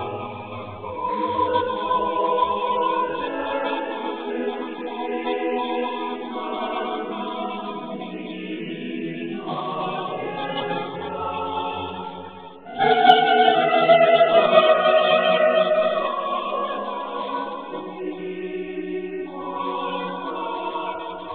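A choir singing a slow hymn in long held chords, phrase by phrase. About 13 seconds in, after a short pause, it comes in suddenly louder, then softens again.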